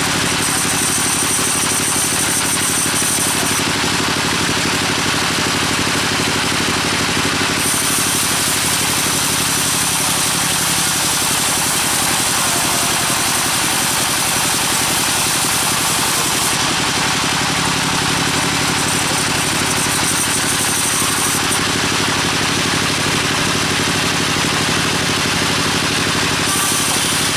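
An engine running steadily at constant speed, with a high hiss that comes and goes several times.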